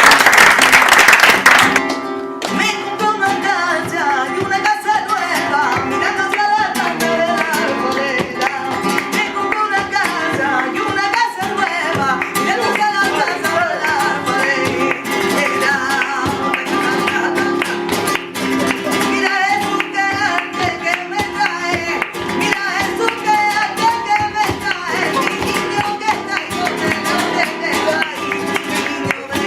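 Flamenco music: plucked guitar with a voice singing. It opens with a loud burst of noise lasting about two seconds.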